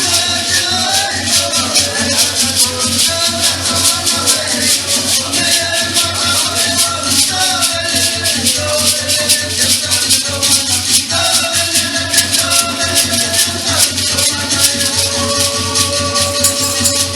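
Music with a steady, fast maraca-like shaker rhythm under a melody of held notes.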